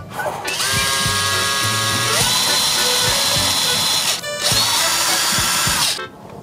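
Cordless power drill running, its motor whine stepping up in pitch about two seconds in. It stops briefly near four seconds, then runs again for about a second and a half.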